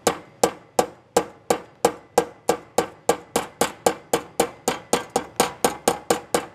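A hammer steadily tapping a dent out of a stainless steel car trim strip: about two dozen light, ringing metallic taps, quickening from about three to about five a second.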